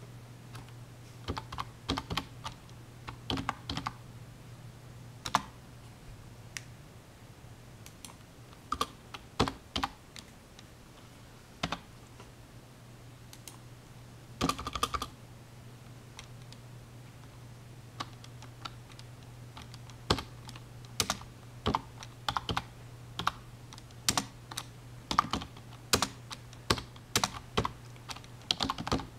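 Typing on a computer keyboard in irregular bursts of keystrokes with pauses between them, over a steady low hum.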